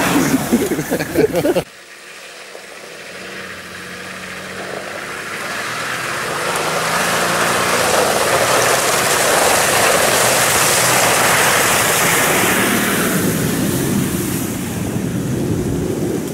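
An off-road vehicle's engine passes close by for the first second and a half, then cuts off abruptly. A Nissan Patrol then drives through a water-filled muddy rut, its engine under load with a steady rush of splashing water. The sound swells as it comes closer and eases off near the end.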